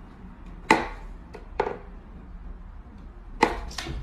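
Four sharp wooden knocks and a fainter tap, spaced irregularly, from a wooden whack-a-mole cat toy box as the cat swats at the stick popping up through its holes.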